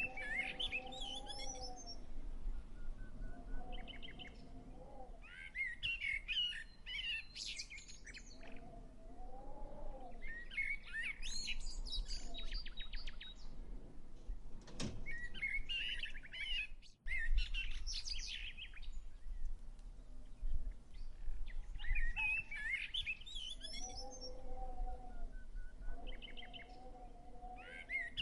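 Songbirds singing in short, repeated bursts of quick warbling and chirping notes, with lower drawn-out calls between the phrases, over a steady low rumble. A single sharp click about fifteen seconds in, and a brief cut-out of the sound a couple of seconds later.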